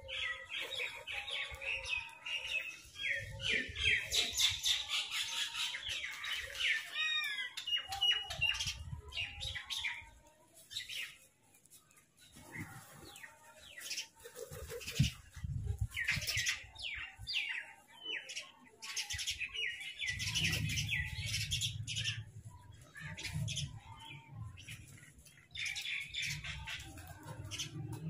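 Crow chirping in quick runs of short high calls, broken by a few brief pauses, with a low rumble under the calls about two-thirds of the way through.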